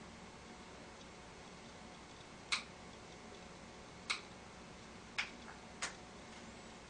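Four single key presses on a netbook keyboard, each a sharp plastic click, spaced unevenly about a second or more apart.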